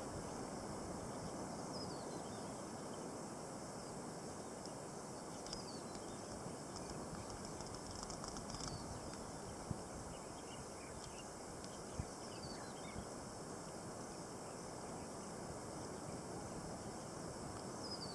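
Outdoor ambience: steady background noise with a short, high, falling call repeated every few seconds, likely a bird, and two sharp clicks near the middle.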